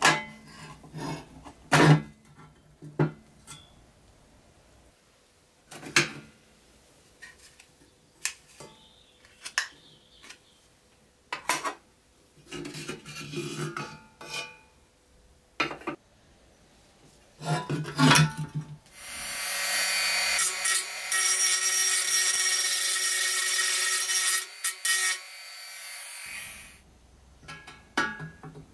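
Pressed-steel toy truck body and plastic parts being handled, with scattered knocks, clicks and scraping, then a power drill running steadily for about six seconds, drilling out a rivet, and cutting off sharply.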